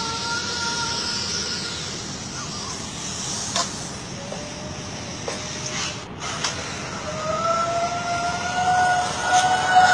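A drawn-out wail at one pitch that slides slightly upward, fading in about seven seconds in and growing louder toward the end, over a steady hiss; a fainter wail dies away in the first second or two.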